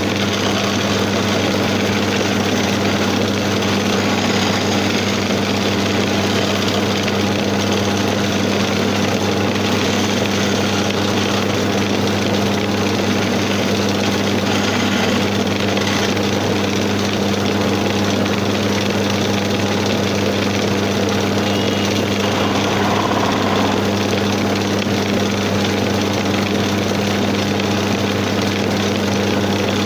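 Electric motor of a homemade floor-mounted wood lathe running steadily with a steady hum, spinning a wooden rod as a hand chisel is held against it.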